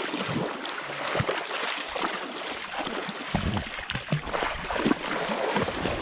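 River water rushing and splashing in a shallow stream, with irregular sharper splashes as the first fishing net is cast and worked in the water.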